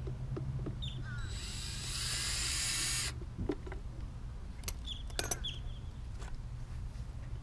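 Cordless drill-driver spinning a bolt out of the lid of a Lectrasan marine toilet treatment unit for about two seconds, starting about a second in. It is followed by a few light metallic clicks and clinks of the spanner and the loosened bolts.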